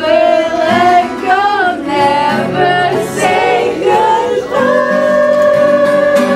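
Live singing with acoustic guitar accompaniment. The voice moves through several short notes, then holds one long note for the last couple of seconds.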